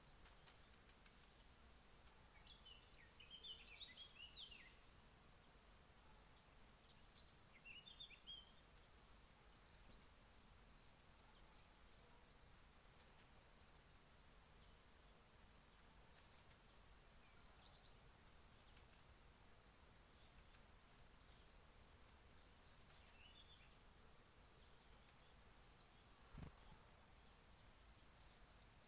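Small birds chirping: many short, high chirps and ticks scattered throughout, with a few lower twittering phrases a few seconds in and again around the middle. A single soft low thump near the end.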